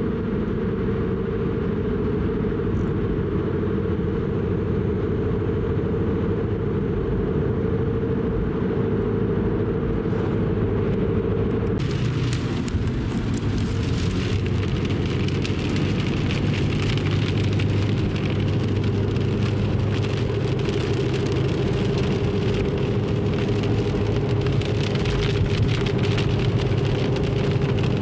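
Steady road and engine noise of a Subaru WRX driving at highway speed, heard from inside the cabin as a low hum. About twelve seconds in, a brighter hiss with fine crackling joins the hum.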